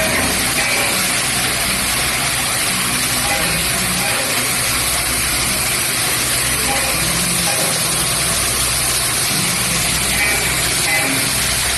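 Automatic cap assembly machine and its conveyor belts running: a steady, even mechanical noise with a low hum underneath.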